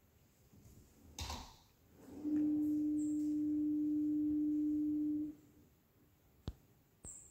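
A steady, pure electronic tone comes in about two seconds in, holds for about three seconds and stops. A short rustle comes just before it, and a sharp click near the end.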